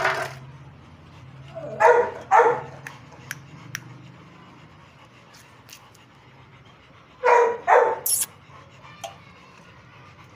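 A dog barking: two short barks about two seconds in and two more about seven and a half seconds in.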